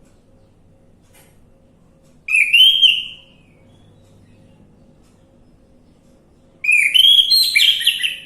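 Orange-headed thrush singing two clear, whistled phrases: a short one about two seconds in and a longer, more varied one near the end.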